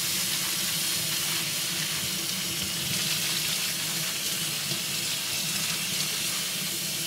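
Kitchen faucet running steadily, its stream splashing through a bunch of broccoli rabe held in the hands and onto a stainless steel sink as the greens are rinsed.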